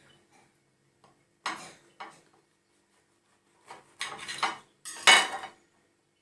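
Spoon clinking and scraping against a bowl: a few short clatters, the loudest about five seconds in.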